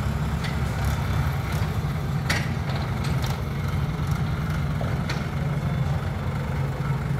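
Mahindra 575 DI tractor's diesel engine running steadily with a low, even rumble. A single sharp knock sounds about two seconds in.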